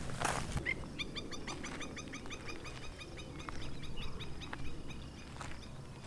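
A flock of waterfowl calling: a quick, busy run of short, arched calls, several birds at once, that fades after about four seconds. A brief knock and rustle of handling comes at the very start.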